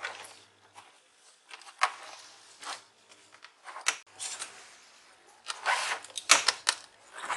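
Irregular sharp plastic clicks and short scrapes from a Lenovo IdeaPad 100 laptop's case and keyboard being handled and pried apart by hand, growing busier toward the end.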